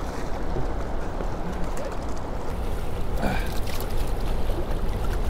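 Steady rush of turbulent water released from the dam, with a heavy low rumble underneath; a few short clicks about three seconds in.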